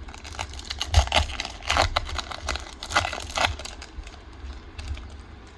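Crinkling and rustling of a foil Pokémon card booster-pack wrapper being handled, in a run of irregular crackles.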